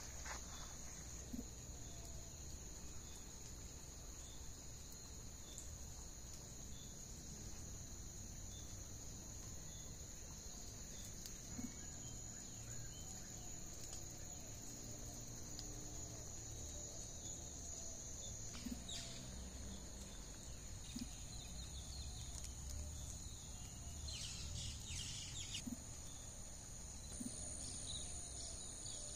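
Steady high-pitched chorus of insects, with scattered short bird calls over it and a low rumble underneath.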